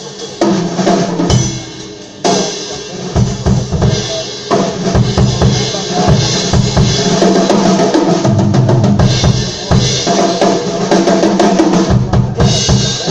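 Live band playing, with the drum kit and bass guitar to the fore. The drums come in about half a second in, and the music drops back briefly around two seconds in before the full band resumes.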